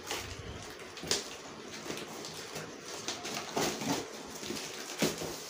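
Cardboard carton rustling and scraping, with a few short knocks, as hands grip a heavy tubular inverter battery inside the box to lift it out.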